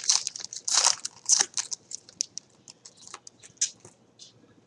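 Trading card pack wrapper being torn open and crinkled by hand, a quick run of sharp crackles that thins out after about two seconds into a few scattered crinkles.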